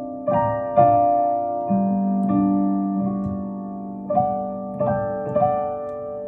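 Slow solo keyboard playing in a piano sound: held chords with new notes struck every half second to a second, each ringing and slowly fading.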